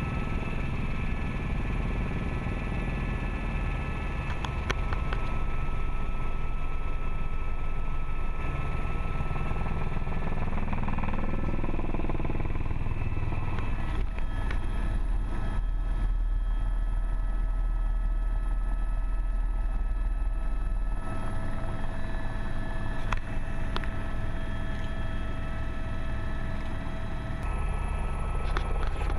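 Helicopter turbine engine and rotor running steadily in flight, heard from inside the cabin: a constant low drone under a few steady whining tones. The tone of the drone shifts abruptly a few times.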